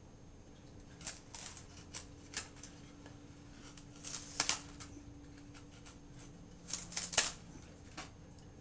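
Benchmade Mini-Rukus folding knife's S30V blade cutting into a pinewood 2x2: groups of short, sharp scraping cuts, the first about a second in, then around four seconds and again around seven seconds.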